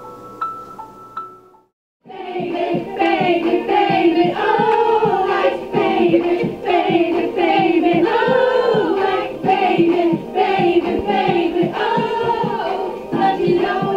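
A soft, bell-like melody of single notes ends about a second and a half in. After a brief silence, a group of women sing together loudly over a steady clapped beat.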